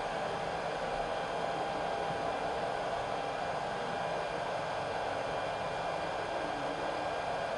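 Hot-air blower of a BK200S BGA rework station running steadily while its nozzle heats a chip on an iPhone 6 board: an even rushing hiss with a few faint steady tones.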